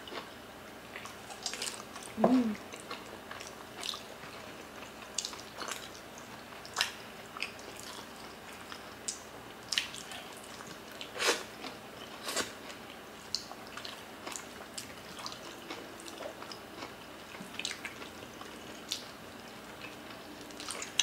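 Close-up eating sounds of two people chewing stewed oxtail and rice eaten by hand: irregular wet mouth smacks and clicks scattered throughout. There is a brief hummed "mm" about two seconds in.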